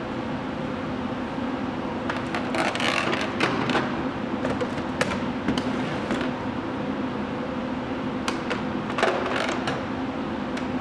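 Hand work with tools and small metal parts: scattered clicks and scraping in two spells, about two seconds in and again near the end, over a steady machine hum.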